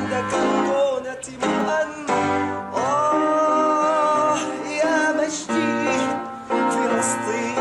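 An Arabic song: a voice singing over piano accompaniment, with two long held, wavering notes in the middle.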